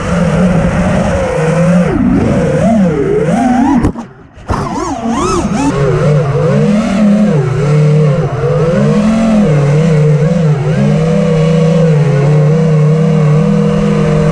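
FPV racing drone's motors and propellers whining, the pitch rising and falling as the throttle changes. The sound drops out briefly about four seconds in, then carries on in a steadier wavering tone.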